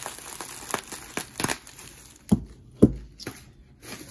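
Plastic bubble wrap crinkling as a bangle bracelet is worked out of it by hand. About two seconds in there are two short knocks as the bracelet is set down on the cloth-covered table.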